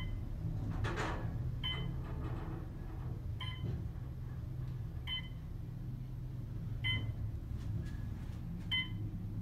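Westinghouse traction elevator car travelling down with a steady low hum, a short electronic beep sounding five times, about every 1.7 seconds, as it passes each floor. A brief rushing noise comes about a second in.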